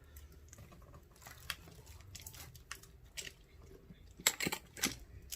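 Quiet, scattered clicks, crinkles and crunches of snack wrappers being handled and opened, with a few sharper ticks about four and a half seconds in.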